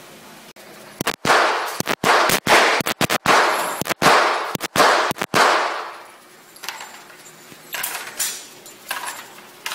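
Handgun fired in a rapid string of about a dozen shots over some four seconds, each shot ringing on in the echo of an indoor range. A few fainter single shots follow near the end.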